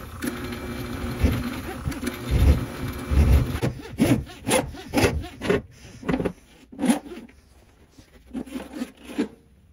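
Electric drum drain snake pulling its steel cable back in through an oiled rag held in a gloved hand. The machine hums steadily for the first few seconds, then gives way to rhythmic rubbing and scraping strokes, about two a second, which stop shortly before the end.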